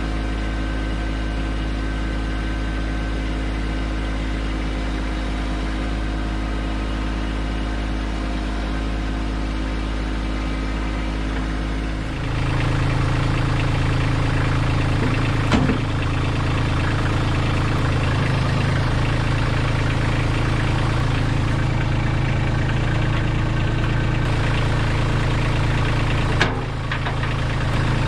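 Kubota LX2610 compact tractor's three-cylinder diesel engine running steadily, getting louder about twelve seconds in. Two short metallic clunks, one a few seconds after that and one near the end, as the front hitch catches and couples onto the snowblower.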